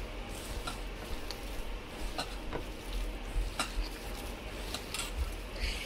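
A hand squeezing and kneading a wet batter of grated bottle gourd and rice flour in a stainless steel bowl. Quiet mixing noise with scattered light clicks and knocks against the bowl.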